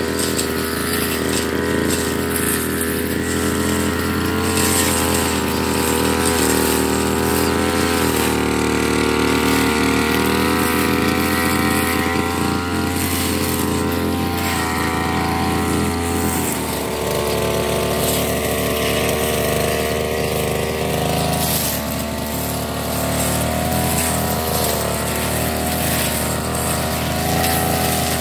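Backpack brush cutter's petrol engine running at high speed while its line head cuts grass and weeds. The engine's pitch wavers as the load changes and shifts noticeably about halfway through.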